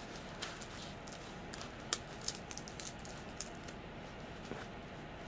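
Quiet handling sounds: scattered light clicks and rustles as the contents of a diamond painting kit are moved about, with half a dozen sharp ticks in the first three and a half seconds.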